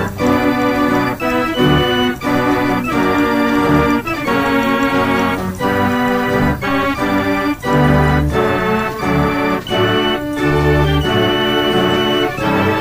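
Organ music playing loudly, with held chords and bass notes changing about once a second.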